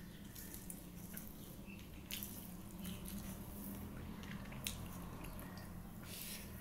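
Eating sounds: soft wet squishes and smacks as rice and curry are mixed by hand on a steel plate and chewed, with a few sharper clicks about two seconds in and near the end. A steady low hum runs underneath.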